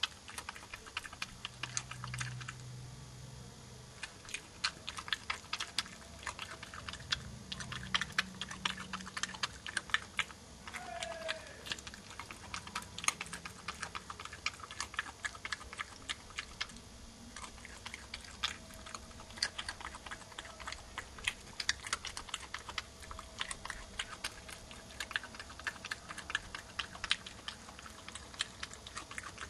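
Badger crunching and chewing peanuts: a rapid, irregular run of small crisp clicks and cracks.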